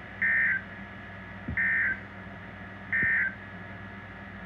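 Emergency Alert System end-of-message data bursts on NOAA Weather Radio: three short electronic screeches of digital tone data, about a second and a half apart, sent to close the alert. They play over a steady background hum.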